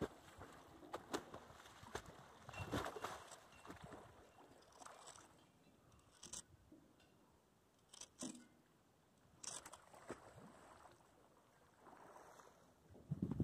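Faint, irregular water splashes and sloshing from a person moving in the water in a life jacket, in short separate bursts.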